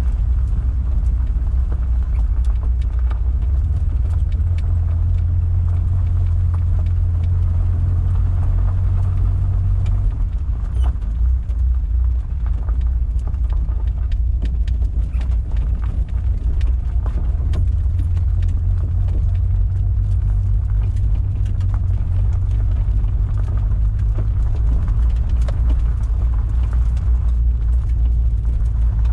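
A 1973 Datsun 240Z's straight-six engine runs at a steady low drone, heard from inside the cabin as the car creeps along unpaved road. From about ten seconds in, scattered clicks and knocks from the tyres and underbody join the drone as the car rolls onto a rough dirt trail.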